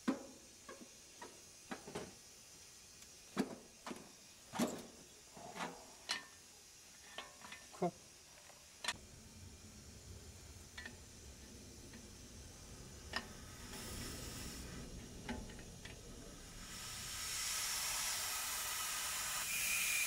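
Sharp metal clinks and taps of an adjustable wrench and pliers on the pipe fittings of an air-conditioner compressor. About two-thirds of the way through, a steady hiss sets in and grows louder: gas escaping from a fitting being loosened.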